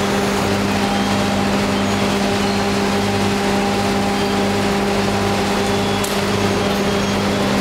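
Crushing machine running steadily: a constant motor hum over a dense grinding noise, with a low throb pulsing a little under twice a second.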